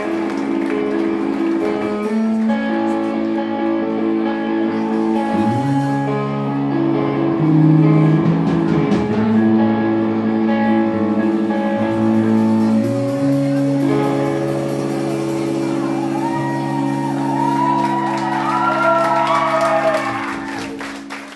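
Live rock band playing with electric guitars, bass and drum kit: long sustained chords over drum hits, settling into one held chord that fades out near the end.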